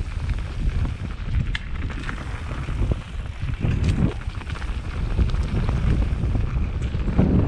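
Wind buffeting the microphone over the low rumble and rattle of a mountain bike riding fast down a rough dirt trail, with a few sharp knocks from bumps.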